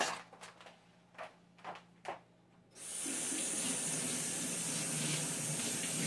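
A few light clicks, then about three seconds in a kitchen faucet is turned on and water runs steadily into a stainless steel sink.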